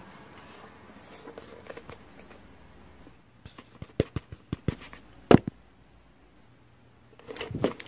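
Sheet of paper being handled and flipped: a faint rustle, then a run of short crisp clicks and crackles from about three and a half seconds in, the sharpest just past five seconds, and a soft rustle near the end.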